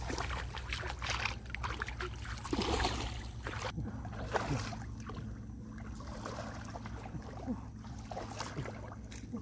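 Shallow muddy paddy water sloshing and splashing as people wade and grope through it by hand, with small scattered splashes and rustles, busier in the first half, over a steady low rumble.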